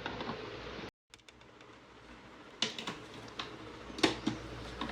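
Small plastic toy pieces tapping and clicking as they are handled and set in place, with a few sharp clicks scattered through. The sound cuts out completely for a moment about a second in.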